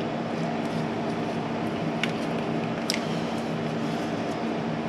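A steady low hum runs throughout. Two short plastic clicks come about two and three seconds in, as a small pry tool works an electrical connector loose.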